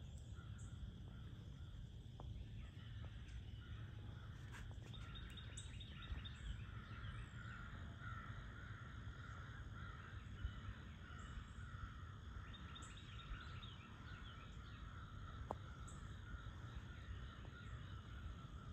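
Faint dawn ambience: a steady insect drone over a low rumble, with a bird calling in two runs of quick calls, about a third of the way in and again past two-thirds.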